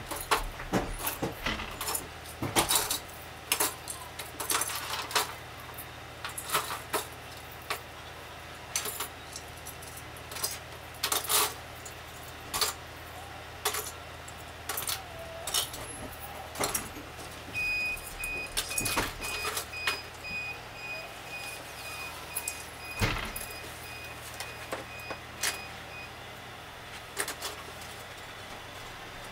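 Christmas ornaments clinking and jingling in irregular light clicks as they are taken off an artificial tree and dropped into a clear bag, over a steady low hum.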